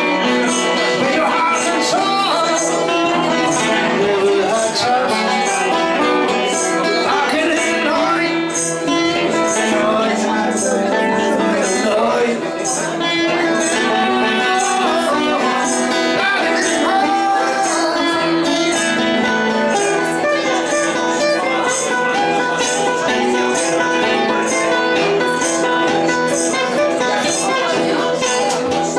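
Music: a song with guitar, a voice, and a steady beat of high jingling percussion like a tambourine.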